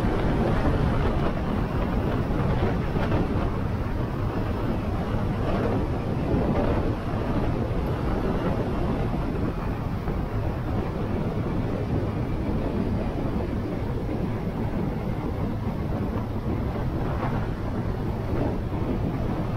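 Motorcycle engine running at a steady cruising speed while riding, mixed with wind rushing over the microphone.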